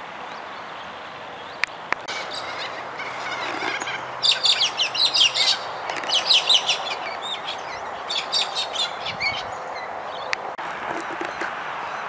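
A flock of cockatoos calling in a burst of rapid, high-pitched chattering, loudest about four to seven seconds in and tailing off near the end, over a steady outdoor hiss.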